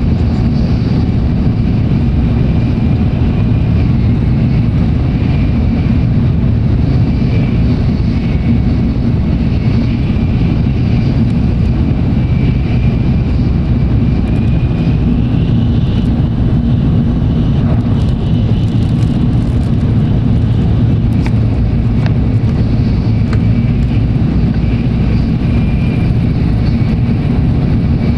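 Tokaido Shinkansen train running at speed, heard from inside the passenger car: a steady low rumble with a faint high whine that drifts slightly in pitch.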